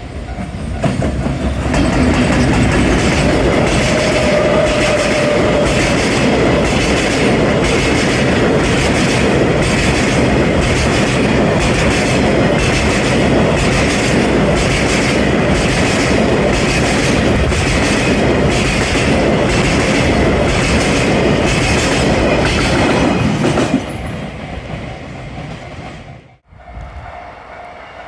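A train passing close by at a level crossing, its wheels clattering over the rail joints in an even rhythm. The sound builds about a second in, stays loud for over twenty seconds, then drops off abruptly as the last cars clear.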